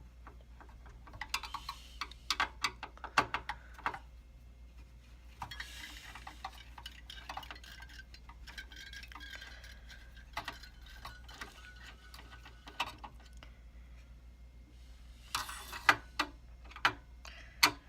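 Small metallic clicks, taps and scrapes of a tool and hands working inside a computer case to remove a CPU heatsink, in clusters with quieter gaps, over a steady low hum.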